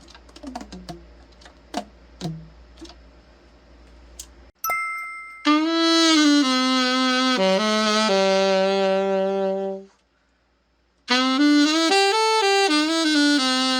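Yanagisawa A-940 alto saxophone being play-tested after an overhaul: a few long held notes stepping down to a low note, a short pause, then a brief phrase that rises and falls back to a held note. Soft key clicks come in the first couple of seconds.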